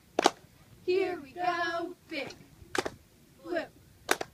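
Cheerleaders' voices chanting a sideline cheer, with drawn-out syllables, broken up by three sharp hand claps.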